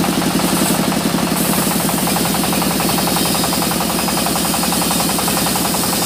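Sawmill engine running steadily with a rapid, even knocking beat.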